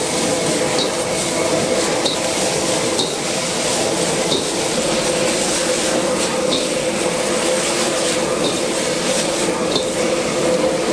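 Vegetables sizzling as they are stir-fried and tossed in a wok over a high gas flame. A metal ladle scrapes and clinks against the wok about once a second, over the steady hum of the wok burner.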